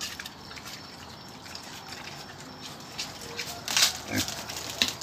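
Pen of wild boar and crossbred pigs grunting, with three short louder calls close together about four seconds in.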